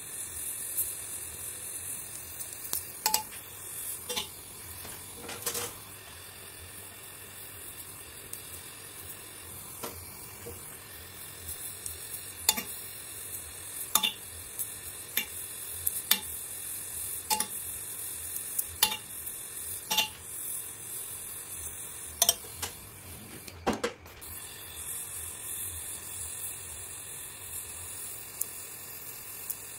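LPG gas torch flame hissing steadily as it welds aluminium with a filler rod, with about a dozen sharp clicks scattered irregularly through it.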